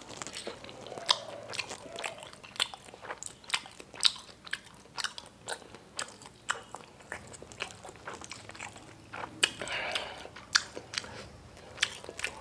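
Close-miked chewing of bakso meatballs: a steady run of wet mouth clicks and smacks, with a short breathy stretch about ten seconds in.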